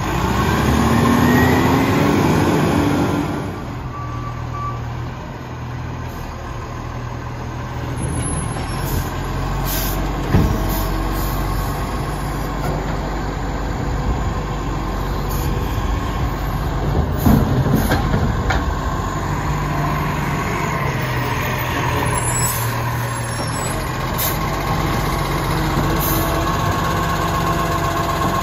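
Side-loader garbage truck running, its engine and hydraulic pump making a rising whine as the lifting arm sets a bin down. The truck then drives to the next bin, with a few sharp hisses or knocks about ten seconds in and again around seventeen seconds, and its arm is working again near the end.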